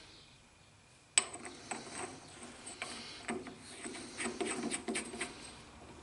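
A single sharp metallic click about a second in, then irregular small knocks and rubbing as hands handle and turn a steel bar clamped in a lathe chuck.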